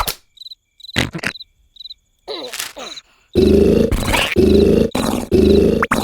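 Crickets chirping in short repeated pulses in near quiet, with a few sharp clicks. About halfway through, loud cartoon snoring starts: rhythmic rasping snores, roughly three every two seconds.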